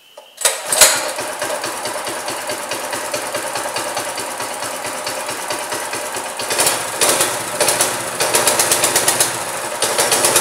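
Predator 212 single-cylinder four-stroke engine on a Mega Moto 212 minibike catching on the pull-start with a sharp bang about half a second in, then running with a fast, even beat. In the second half it is brought up louder in short bursts a few times.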